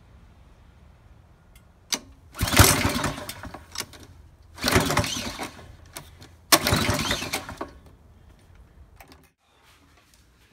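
Honda GC160 single-cylinder engine being pull-started by its recoil starter three times, turning over but not catching. It has been run out of oil until it died and will not restart.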